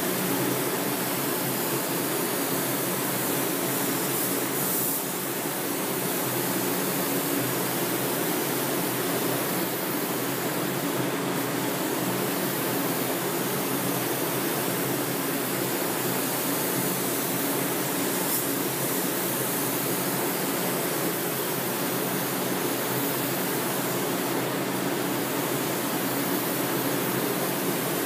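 Steady rushing hiss of compressed air from an automotive paint spray gun spraying a car door, over the constant drone of the paint booth's ventilation fans.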